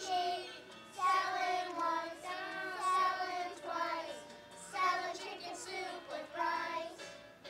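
A group of young children singing together in unison, in short phrases with brief pauses between.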